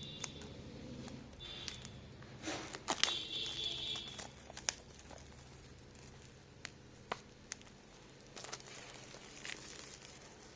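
Unboxing handling sounds: scattered light clicks and knocks, with a louder crinkling, tearing rustle of packaging from about two and a half to four seconds in.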